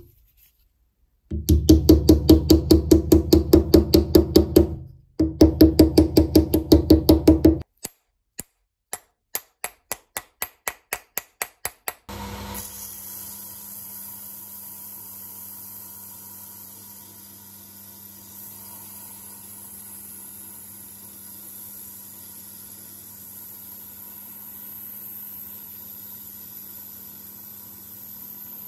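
A fast run of loud, ringing knocks, about four or five a second, in two bursts, then slower single clicks. From about twelve seconds in, a belt sander runs steadily with a high hiss as the polished steel hammer head is held against the belt.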